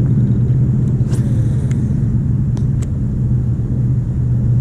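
Steady low mechanical hum, like a running motor, with a few faint clicks and a brief swish about a second in.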